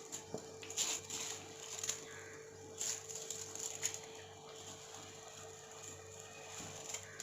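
Drained, soaked seeraga samba rice being tipped into a pot of boiling biryani masala water in several short rustling, splashing bursts, over a steady hum.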